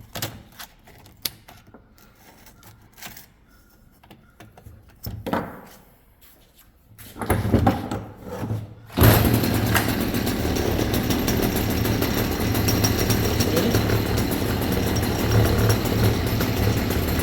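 Light clicks and handling of parts, then about nine seconds in a motor starts and runs steadily and loudly with a low hum.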